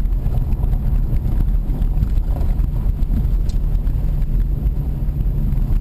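Vehicle driving along a rough dirt road: a steady low rumble of engine and tyres with small knocks and rattles, and wind on the microphone.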